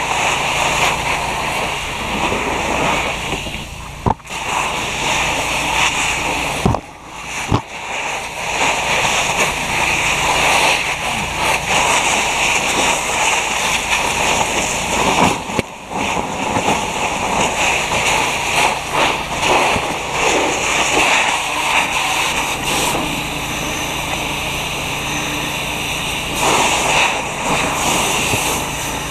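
Fire hose nozzle spraying water into a burning car, a steady rush of water splattering on the car body and cabin; the noise dips briefly a few times.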